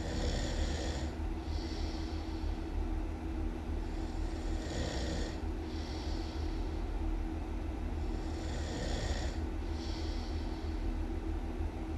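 A person snoring loudly in slow, even cycles: two noisy breaths per cycle, a longer one then a shorter one, repeating about every four seconds, three times. A steady low hum runs underneath.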